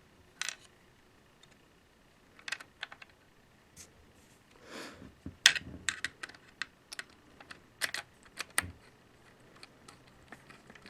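Scattered light clicks and taps of small parts being handled on a GSG-522 rifle as an Allen screw and lock washer are put in and tightened with an Allen wrench. The clicks come thickest in the middle, with a brief scrape just before them and a dull knock near the end.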